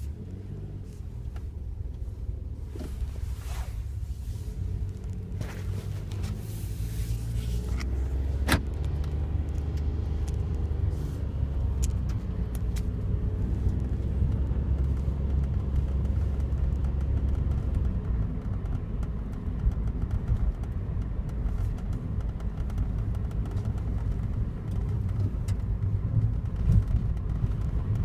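A Daihatsu Wake kei car running, a steady low rumble that grows louder over the first eight seconds, with scattered sharp clicks and ticks, the sharpest about eight seconds in. The car has developed an abnormal noise one month after delivery, worst when the outside temperature is low.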